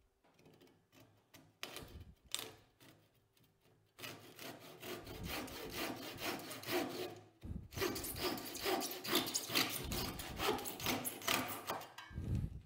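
Hand saw cutting a wooden runner strip clamped in a bench vise. A few scattered knocks come first, then steady back-and-forth sawing starts about four seconds in and stops shortly before the end.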